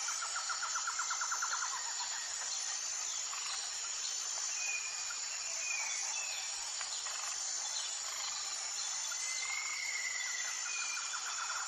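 Nature ambience: insects shrill steadily at a high pitch over a constant hiss. A fast trill sounds at the start and again near the end, and a few short bird chirps come in between.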